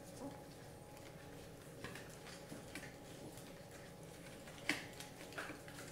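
Newborn puppies suckling at their mother: faint, irregular little clicks and smacks of nursing, with a sharper one about three-quarters of the way through.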